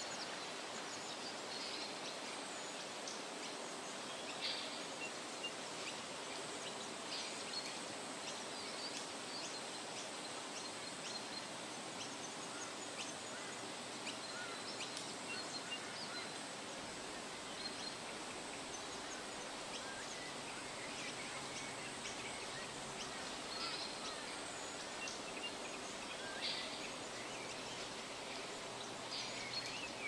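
Shallow forest stream flowing steadily over rocks, with short high bird chirps and calls scattered every few seconds.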